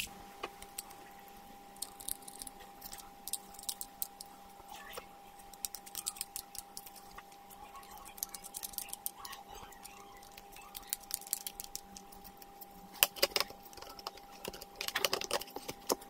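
Scattered small clicks and taps as a 2.5-inch SSD in its plastic laptop drive caddy is handled and its small silver side screws are put in, with a few louder clatters near the end. A faint steady hum runs underneath.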